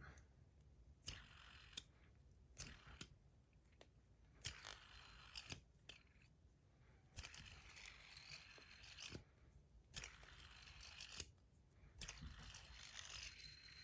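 Handheld fidget spinner with a full ceramic bearing being flicked and spun: faint clicks of handling between stretches of a soft, hissing bearing whir.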